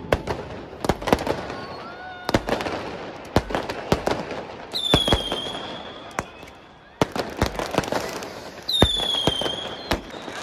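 Fireworks going off in a run of sharp cracks and bangs. Two high whistles that dip slightly in pitch come at about five and nine seconds in, each followed by a burst of crackling.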